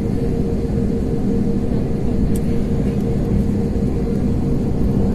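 Steady rumble and hum inside an airliner's cabin as it taxis after landing, with a constant low tone running underneath.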